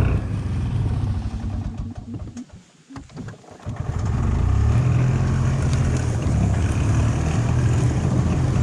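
Golf cart driving with its engine running as a steady low rumble, which falls away about two seconds in and picks up again about a second and a half later.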